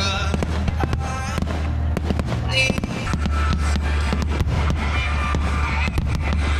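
Fireworks popping and crackling in quick succession, with music playing underneath on a steady bass line.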